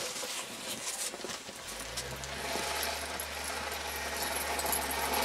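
Grumman LLV mail truck stuck in deep snow, its engine droning as the driver gives it gas and a rear wheel spins in place, churning snow. The drone comes in about two seconds in and the noise builds toward the end.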